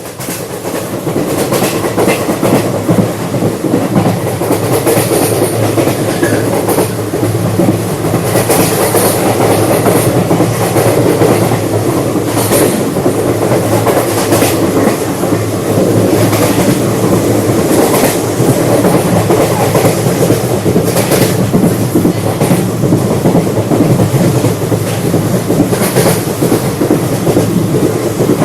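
Indian Railways passenger train (Karwar Express) running at speed: a steady rumble of the coach with wheels clicking over the rail joints. It fades in over the first few seconds.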